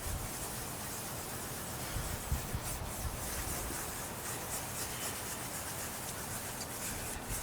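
Fine 2000-grit sandpaper rubbing steadily over a plastic headlight lens, sanding off the yellowed, degraded clear coat.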